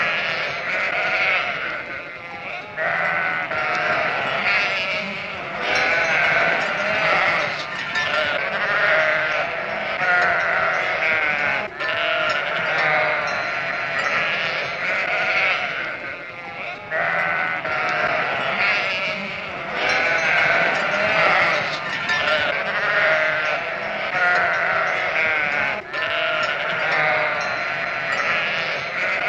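Many animals calling at once, bleat-like cries overlapping without a break, with a few short dips where the sound briefly drops.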